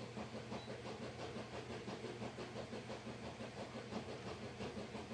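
Faint, steady machine-like hum with a fast, even flutter.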